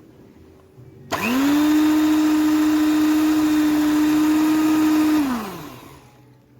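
Electric hand mixer switched on about a second in, spinning up quickly to a steady whine, running for about four seconds, then switched off and winding down, beating flour into a dough.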